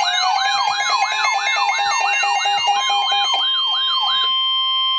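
Several electronic siren and alarm tones layered together: a fast rising yelp repeating about three times a second, a higher warbling tone, a slow rising whoop and rapid on-off beeps. The warble drops out past three seconds and the yelp a little past four, leaving steady tones.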